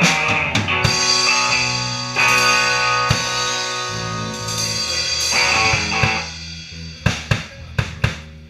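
Rock band playing live on electric guitars and drum kit: a run of quick drum strokes, then a long held chord with ringing cymbals that dies away, followed by a few scattered drum hits near the end.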